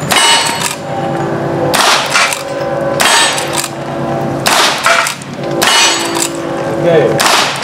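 Six rifle shots fired at a steady pace, roughly one every second and a half, each followed by the ring of a hit steel target.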